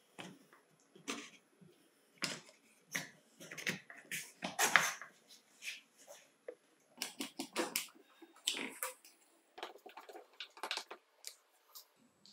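The plastic housing halves of a Hitachi G18DSL cordless angle grinder being handled and pressed together over the motor: a string of irregular sharp clicks and knocks, the loudest about halfway through.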